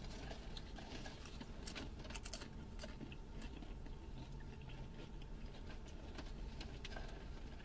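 People chewing food inside a car, with scattered small crackles and clicks of food being handled, over a low steady hum.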